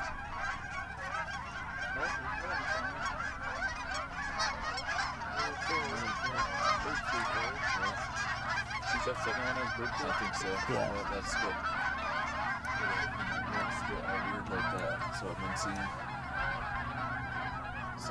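A large flock of Canada geese honking overhead, many calls overlapping without a break.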